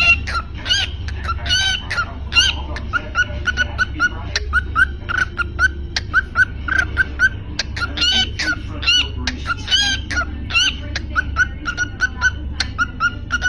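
Cockatiel chirping over and over, short chirps about two or three a second broken now and then by louder, longer calls, over a steady low hum.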